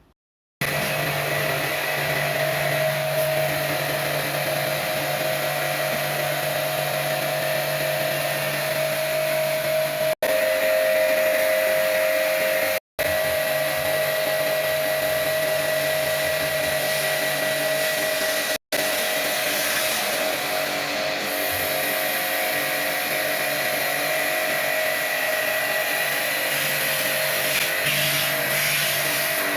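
Electric pressure-washer pump running steadily for an AC water service, a constant motor whine over a hiss. It cuts out abruptly for a moment three times, about 10, 13 and 19 seconds in.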